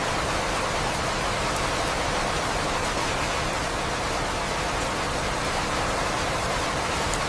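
Steady, even rain sound for sleep, a dense hiss with no distinct drops or thunder.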